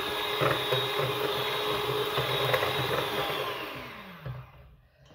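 Electric hand mixer running, its beaters whisking a thin cake batter of eggs, oil, yogurt and milk in a stainless steel bowl. About three seconds in it is switched off and the motor winds down, falling in pitch and fading out.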